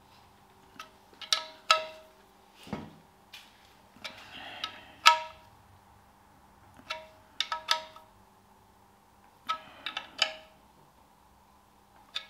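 Spanner clinking against the sump bolts and sump of a Ferguson TE20 engine as the bolts are nipped up. The metallic clinks ring briefly and come in irregular clusters, the loudest about five seconds in.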